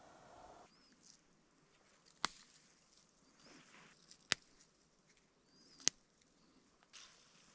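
Spruce tips being snapped off a branch by hand: three sharp snaps a couple of seconds apart, with faint rustling of needles between.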